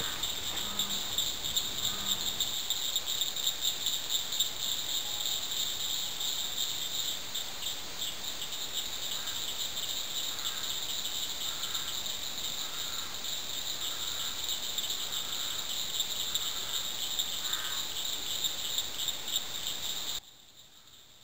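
Evening chorus of insects such as crickets: a steady, high-pitched pulsing trill, with a few faint lower calls mixed in. It cuts off suddenly near the end.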